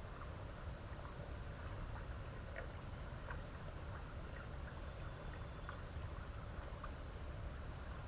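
Faint, steady outdoor background noise: a low rumble with hiss, and a few soft ticks scattered through it.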